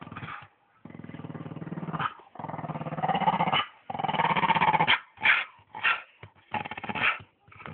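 Staffordshire bull terrier growling: three long growls of about a second each, then several shorter growls.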